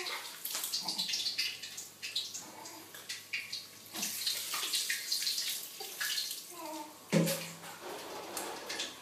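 Water poured from a plastic bowl splashing over a baby and onto a tiled floor in a series of splashes.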